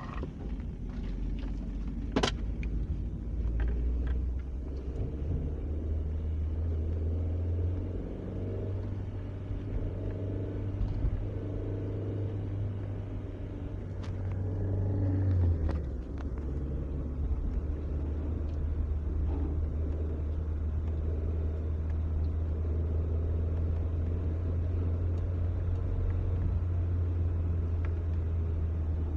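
Mazda Premacy 1.8 four-cylinder petrol engine running under way, a steady low rumble whose note drops slightly about halfway through. Near the end comes the metallic knocking from the left side of the engine. The knocking stops when the clutch is pressed.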